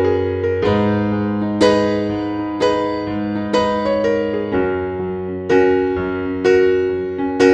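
Soft background piano music: notes or chords struck at an even pace of about one a second, each ringing and dying away before the next.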